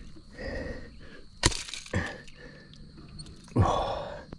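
Sharp knocks: a hard crack about a second and a half in, a second weaker knock half a second later, then a louder scuffling thump near the end.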